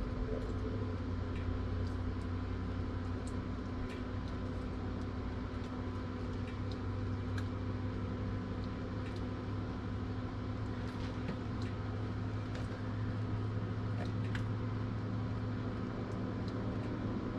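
A steady low mechanical hum, with scattered faint light clicks and taps from fish pieces and containers being handled.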